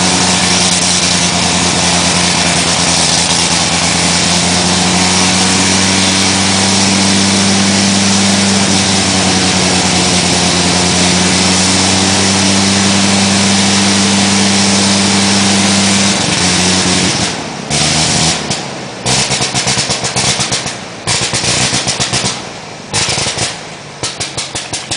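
Vintage aircraft engine running steadily at a constant pitch. About sixteen seconds in it turns choppy, cutting in and out in short bursts.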